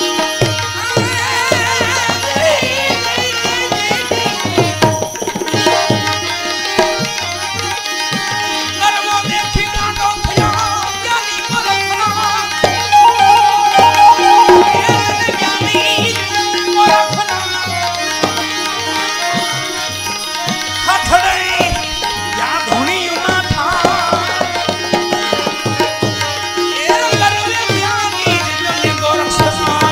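Indian devotional bhajan music with tabla and a melody instrument playing continuously over steady held tones.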